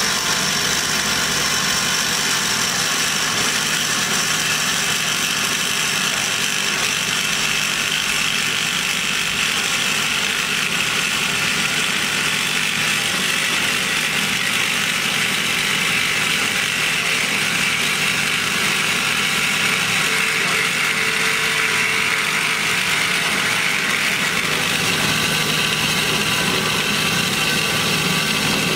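Hyd-Mech S-23A horizontal band saw running, its blade sawing through metal stock with coolant flowing. A steady, even machine noise with a hissing edge to it.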